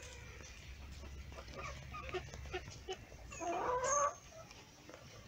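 Free-range chickens clucking in short, scattered calls, with one louder, longer call about three and a half seconds in.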